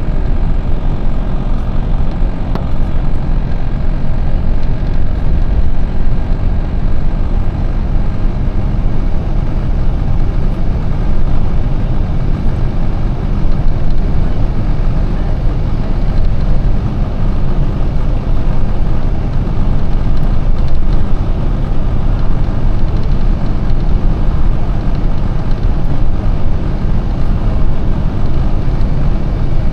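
Steady engine and road noise heard from inside the cabin of a moving Airlink bus.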